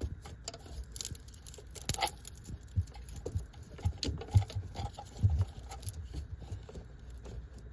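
Irregular light clicks and taps of hand tools and metal being worked on a car's battery ground strap, with one sharper knock about four and a half seconds in.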